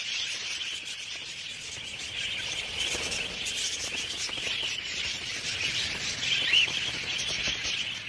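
Large flock of budgerigars chattering: a dense, continuous twittering of many overlapping chirps.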